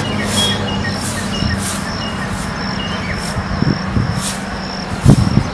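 Outdoor ambience: a steady low rumble with a short high chirp repeating about every half second and a few scattered faint chirps, then a low thump near the end.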